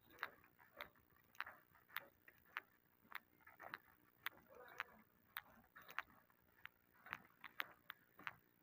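Faint, sharp clicks, roughly two a second and unevenly spaced, over faint distant murmur.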